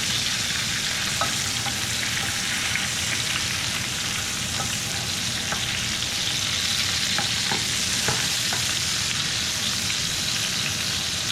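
Short ribs sizzling steadily in hot fat in a pan on high heat, with scattered small pops and crackles, while the fat is spooned over them with a wooden spoon to baste them.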